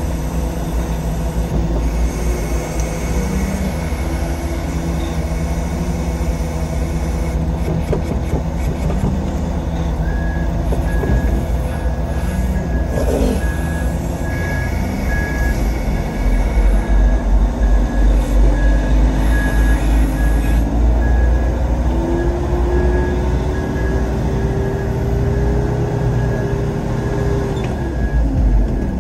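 Concrete mixer truck's diesel engine running steadily, with a beeping backup alarm starting about a third of the way in. The engine gets louder just past halfway and revs up in pitch, holding high near the end as the truck moves off.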